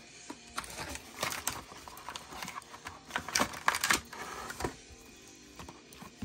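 Clear plastic packaging rustling and clattering as it is handled, with a few sharp clicks about a second in and a louder cluster of clicks and crinkles around three and a half to four seconds, then quieter handling.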